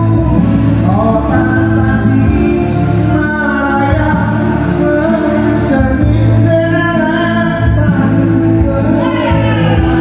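A man singing an Indonesian pop song karaoke-style into a handheld microphone, his voice amplified through a karaoke sound system over a backing track.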